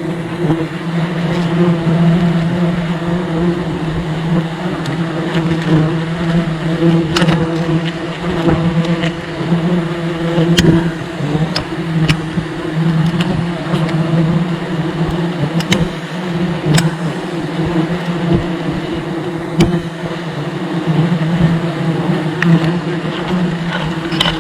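A mass of honeybees buzzing at a large nest: a loud, steady hum with scattered sharp clicks.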